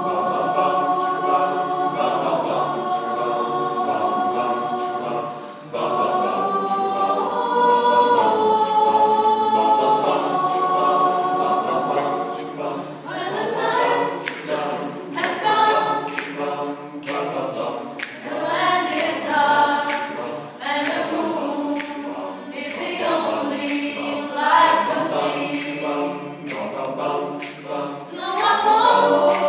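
Mixed choir singing a cappella, holding sustained chords for the first dozen seconds, then moving into a faster rhythmic passage of short, clipped notes.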